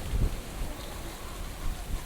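Typhoon rain and strong wind: a steady hiss of rain with gusts buffeting the microphone as irregular low rumbles, the strongest just after the start.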